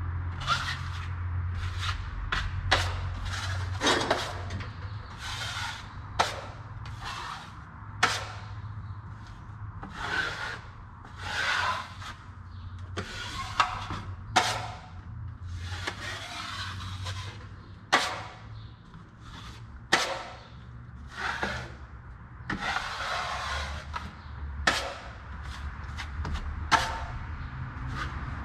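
Drywall taping knife wiping joint compound over paper tape on a drywall seam: repeated scraping strokes, with sharp clicks in between, over a steady low hum.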